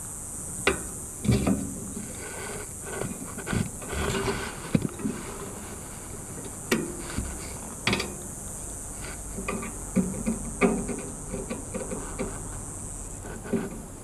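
Scattered small clicks, taps and knocks of hand tools and wires being handled on the condenser top, including a pair of wire strippers being picked up. A steady high hiss runs underneath and fades near the end.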